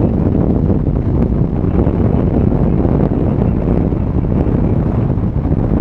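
Strong wind buffeting the microphone: a loud, steady low rumble with no let-up.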